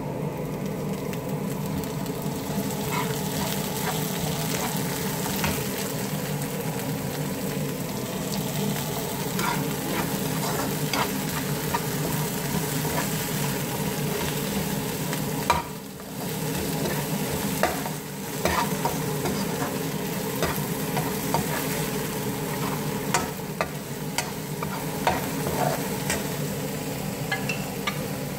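Chopped onion, garlic and peppers sizzling steadily in hot oil in a frying pan, with a slotted metal spatula stirring and scraping, clicking against the pan again and again. The sizzle drops briefly twice about halfway through.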